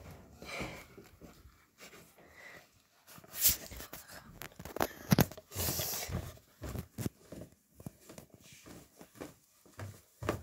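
Rustling and scattered knocks as a handheld phone is carried with its microphone rubbing against clothing.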